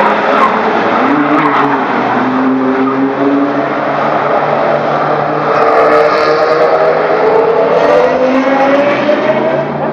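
Several cars, a Scion FR-S among them, driving through a circuit corner, their engine notes overlapping and one climbing steadily in pitch as it accelerates away, loudest in the second half.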